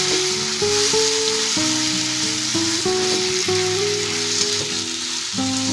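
Mashed elephant apple sizzling steadily in hot mustard oil in a karai as it is stirred with a wooden spatula. Background music with a slow run of held notes plays over it.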